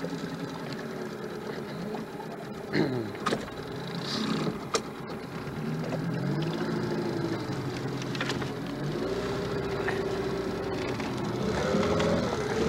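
Small outboard motor running under way, its pitch falling and rising several times as the throttle is eased and opened. A few sharp knocks come between about three and five seconds in.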